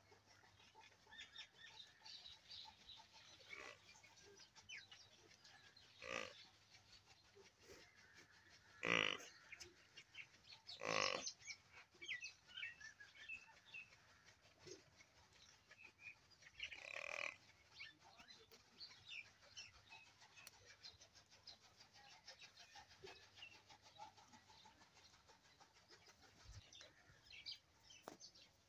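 Cattle making a few short, loud sounds, two close together about nine and eleven seconds in and a shorter one a few seconds later, against a quiet yard with faint bird chirping.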